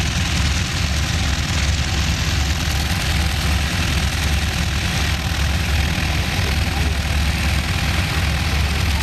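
Junkers Ju 52/3m's three BMW 132 nine-cylinder radial engines idling on the ground: a steady low rumble.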